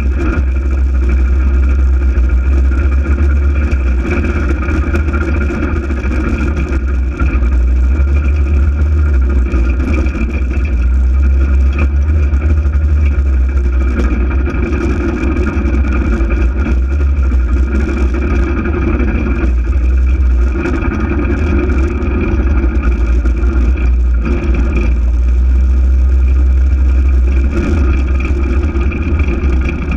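Polaris RZR 800 side-by-side's engine running steadily while driving, with a heavy low rumble and a few slight dips in level.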